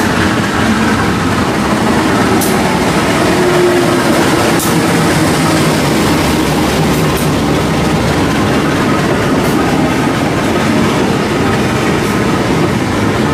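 Passenger train rolling past along a station platform: a steady rumble of steel wheels on rail, with a few sharp clacks as the carriages cross rail joints, and the diesel locomotive's engine running beneath it.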